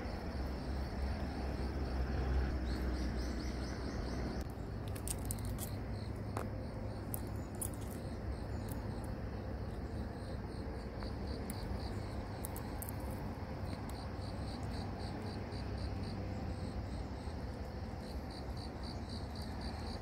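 Insects chirping in fast, even pulses over a steady low rumble of outdoor ambience, with a few brief high ticks in the middle.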